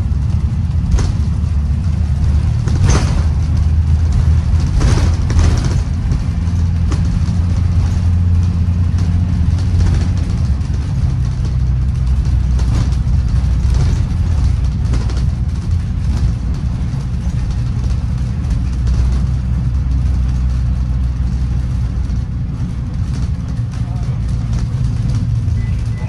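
Inside a moving 2016 Blue Bird Vision school bus: a steady low engine and road drone, with occasional sharp rattles and knocks from the body and seats, several in the first six seconds.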